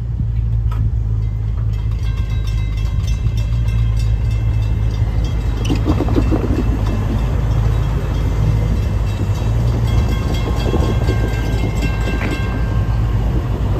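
Railroad crossing warning bell ringing steadily from about two seconds in, over a strong low steady rumble.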